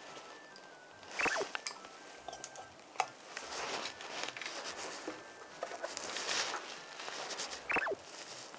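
Plastic valve cupping cups being handled on a bare back: short hisses of air and sharp plastic clicks, with a brief falling squeak about a second in and again near the end.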